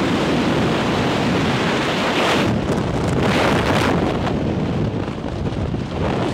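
Rushing freefall wind buffeting the microphone during a tandem skydive, easing about five seconds in as the parachute opens.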